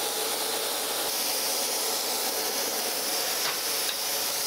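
Surface grinder's wheel running and taking light spark-out passes across a straight edge, a steady hiss. The cut is almost finished: only a few light sparks are left, the sign that the surface is nearly flat.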